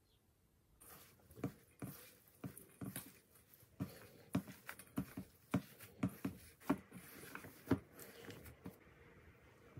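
A hand kneading and squishing a mashed potato and egg mixture in a stainless steel bowl: soft, short strokes about twice a second, starting about a second in.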